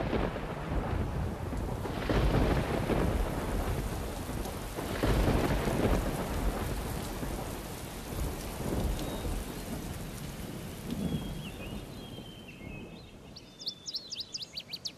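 Thunderstorm: steady rain with rolls of thunder that swell and fade several times, the storm slowly dying down. Near the end, a bird chirps in quick repeated notes.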